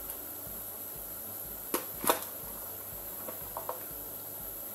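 Two sharp clicks of kitchenware knocking against a frying pan, a third of a second apart near the middle, then a few fainter clicks, as shredded cheese is added to cream in the pan. A steady faint hiss lies under them.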